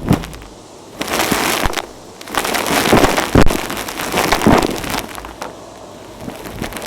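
Vacuum cleaner sucking up dry dirt and grit, crackling and crunching as debris rattles up the nozzle, in surges about a second in and again from about two to five seconds in.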